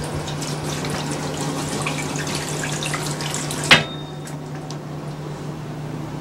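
Tap running into a porcelain bathroom sink, water splashing as hands scoop it up. About two-thirds through comes one sharp clink, after which the splashing dies down.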